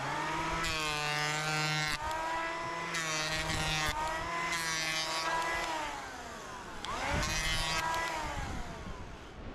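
Ryobi cordless electric hand planer spinning up with a rising whine and shaving a wooden board, the cutting hiss coming and going as it is pushed over the wood, then winding down. About seven seconds in it is started again for a short pass and winds down once more.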